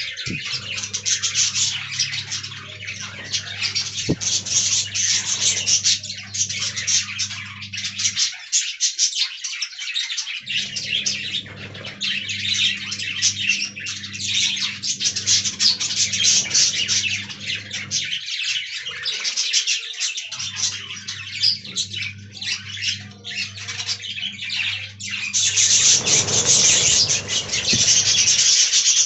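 Budgerigars chattering and warbling in fast, continuous high chirps. A steady low hum runs underneath, dropping out twice.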